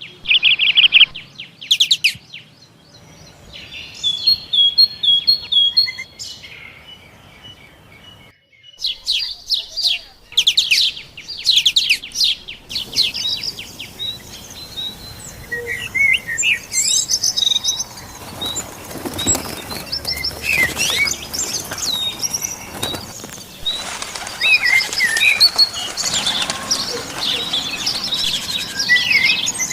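Small birds chirping and calling, many short high chirps and trills, with sudden changes about a second in and again near 8 seconds where stretches are joined.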